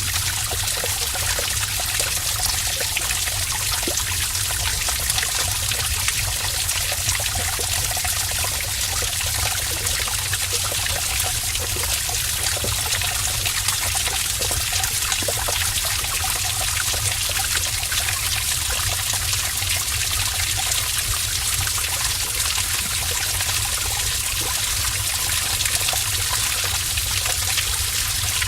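Heavy stream of water pouring and splashing steadily inside a cave, a constant rushing hiss over a low rumble.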